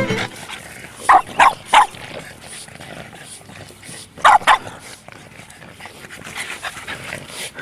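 Boston terriers barking in play: three short, sharp barks about a second in, then two more in quick succession a little after four seconds.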